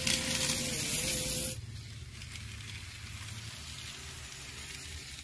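Battery-powered toy train running on plastic track: a small electric motor whining with a wavering pitch over a loud hiss as it passes close, then a quieter steady hiss and low hum after about a second and a half.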